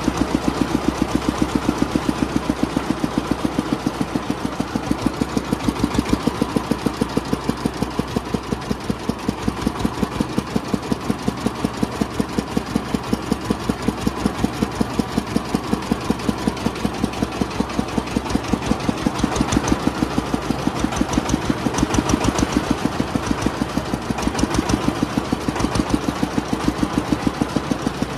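Engine driving a cart-mounted sugarcane juice crusher, running steadily with an even, pulsing beat.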